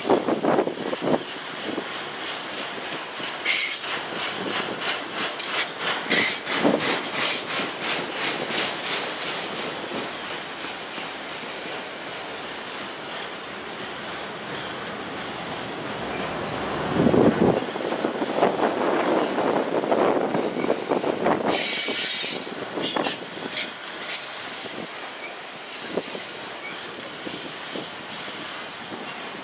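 Autorack freight cars rolling past: a steady rumble of steel wheels on rail, with repeated clicking and knocking over rail joints. Thin high-pitched wheel squeals come in about two-thirds of the way through.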